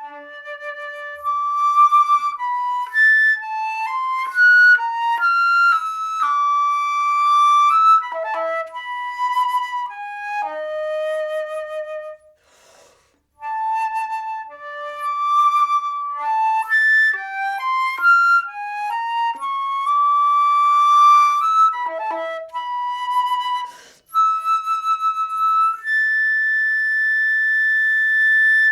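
Solo flute playing a contemporary concert piece: a line of quick shifting notes with short pauses, ending on a long held high note.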